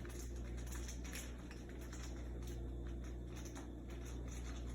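Faint rustling and light clicks of plastic water tubing and a tube coupling being handled, over a steady low hum.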